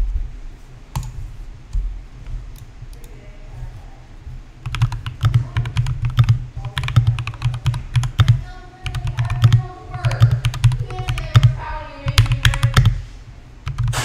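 Typing on a GMMK mechanical keyboard fitted with lubed Tangerine linear switches: a few scattered keystrokes, then steady fast typing from about five seconds in.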